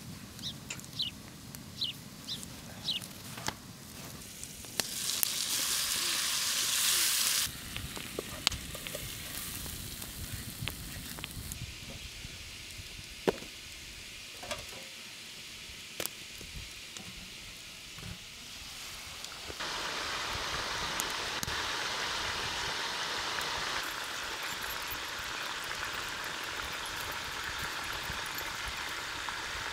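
Beef ribs sizzling in hot fat in a pot, in spells of hissing: a loud spell about five seconds in, and a steadier one from about two-thirds of the way through. Scattered knocks and clinks come in between.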